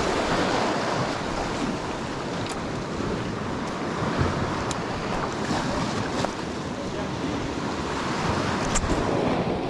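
Small Atlantic waves washing and breaking over low rocks at the shoreline, with wind buffeting the microphone.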